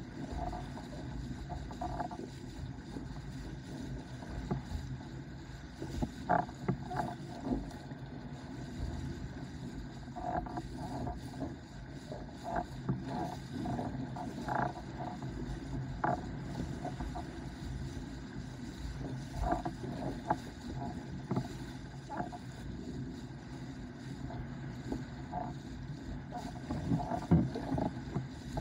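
Starboard S-Type windsurf board under sail: a steady rush of water and wind, broken by irregular knocks and slaps as the board hits the chop.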